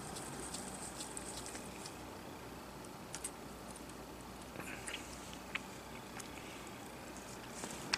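Faint, scattered small clicks and light scrapes of a screwdriver and small metal parts being handled during iPhone 6 disassembly, with a couple of sharper ticks near the middle.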